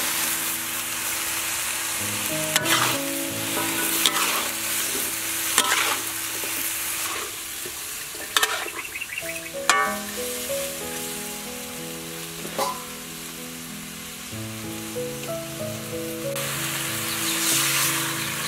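Sliced bell peppers, carrot and onion sizzling with beef in a hot wok, with a metal spatula clanking and scraping against the pan several times as it stirs. Near the end the sizzle rises to a louder hiss as water is poured into the hot wok.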